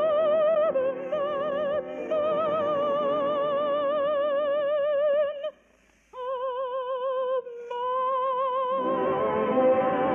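Orchestral music from a 1950 radio broadcast: a high melody line held in long notes with heavy vibrato over the orchestra. The music breaks off for a moment about five and a half seconds in, the melody resumes nearly alone, and the full orchestra comes back near the end.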